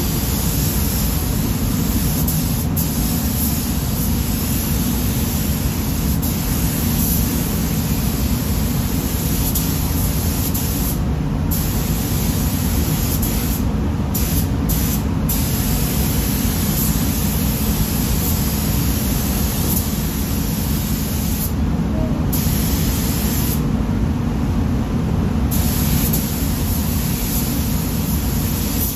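Compressed-air paint spray gun hissing as it sprays pearl white paint, with a few short breaks where the trigger is let off, over a steady low rumble of air in the spray booth.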